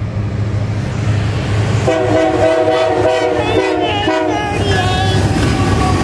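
Union Pacific diesel freight locomotive sounding its multi-tone air horn about two seconds in, held for about two and a half seconds with a couple of brief breaks near the end, over the low steady rumble of its diesel engines.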